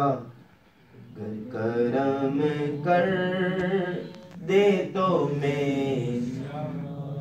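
A man chanting an Urdu devotional supplication poem unaccompanied, in long drawn-out, wavering notes. A breath pause comes about half a second in, and a shorter one just past the middle.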